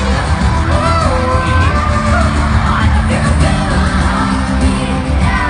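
Live pop music played loud through a hall's sound system: a heavy steady bass beat under a sung melody, with yells from the crowd.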